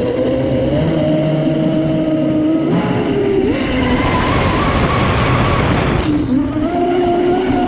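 Onboard sound of a Traxxas M41 RC speedboat's brushless electric motor whining at a steady pitch, which steps up about three seconds in as the boat accelerates. A loud rush of water and wind noise covers it for a few seconds at speed, then cuts out near six seconds as the motor note falls and climbs again.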